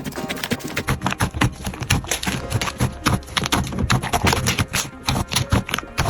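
Crunchy slime being squeezed and pressed by hand: a dense, irregular run of crackling, popping clicks.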